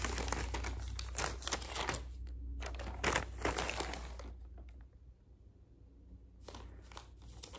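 Packaging crinkling and rustling as items are handled and unpacked, busiest for the first four seconds or so, then a quiet gap and a little more rustling near the end.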